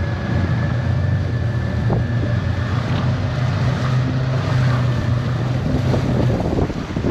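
Boat engine running at a steady low hum, with wind buffeting the microphone; the engine note fades about six seconds in.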